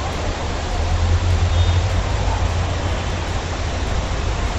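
An SUV's engine running with a low rumble as it moves, over a steady noisy hiss. The rumble swells about a second in.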